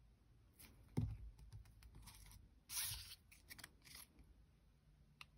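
Faint desk-top crafting sounds: a plastic glue bottle knocking down onto the craft mat about a second in, then light clicks and a short rustle of small cardstock pieces being handled and pressed together.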